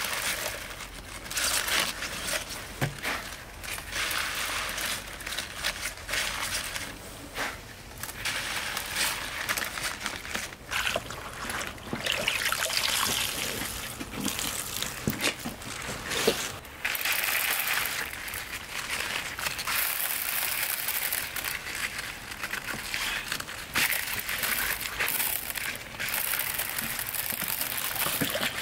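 Water sloshing and trickling, with uneven splashes that swell and drop every second or two.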